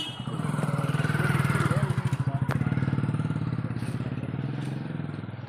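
A motorcycle engine passing close by: it swells over the first second or so and then fades away slowly, with one sharp click about halfway through.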